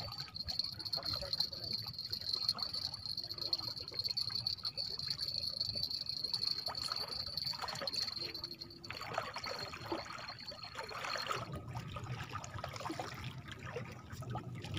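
Small waves lapping and trickling against the rocks of a breakwater, with a steady high-pitched whine that stops about three quarters of the way through.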